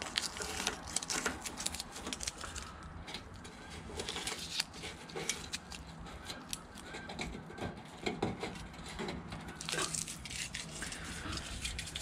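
Hands working at a cut-open sheet-metal truck B pillar, making light, irregular scrapes, taps and clicks.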